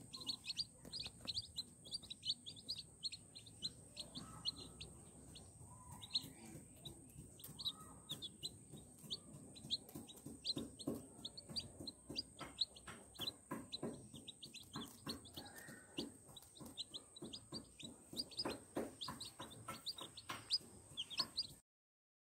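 Chicks peeping continually with short high chirps, mixed with soft clucks from the mother hen and many small sharp taps as the birds peck at the ground.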